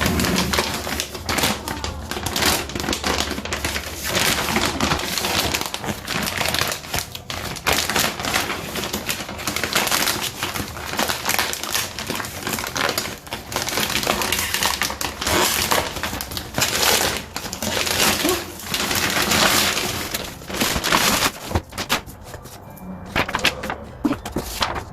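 Cardboard shoe box being opened and its paper packing handled: continuous crinkling and rustling with many sharp crackles.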